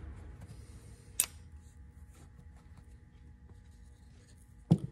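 Hands handling a steel differential spider gear and a squeeze bottle of assembly lube: faint scattered clicks and taps, one sharp click about a second in and a louder single knock near the end.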